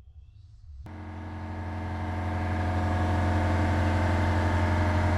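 Motorcycle engine, the Ducati 996's V-twin, running at a steady speed: it starts about a second in, swells over the next couple of seconds, then holds steady.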